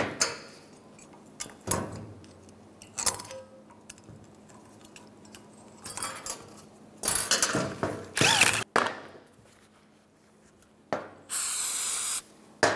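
Metal anti-rattle slide clips and a rusty Mini Cooper front brake caliper bracket handled on a workbench: scattered clicks and knocks, with a cluster of loud scraping and clattering a few seconds before the end. Near the end an aerosol can of brake parts cleaner sprays onto a rag, a steady hiss for about a second.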